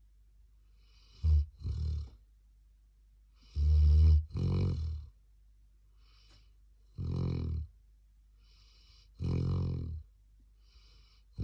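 A 13-month-old black Labrador retriever snoring in its sleep: a run of about five buzzing snores, each paired in and out breaths, coming every two to three seconds. The loudest is about four seconds in.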